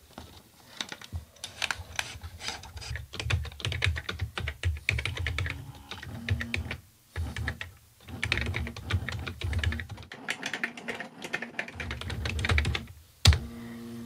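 Typing on a Brother EP43 thermal typewriter's keyboard: rapid runs of key clicks with short pauses and a low hum under them. One sharp, louder click comes near the end.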